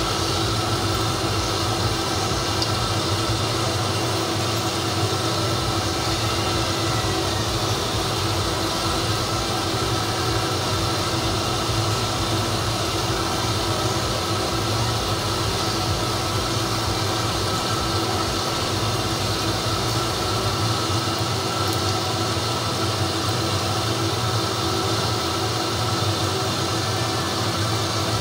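Besan-and-onion pakoras deep-frying in hot oil: a steady sizzle, with a steady hum underneath.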